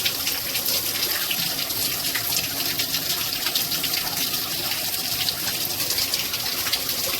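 Water spraying steadily from an INAVAMZ 2-in-1 shower head, an even hiss of falling water.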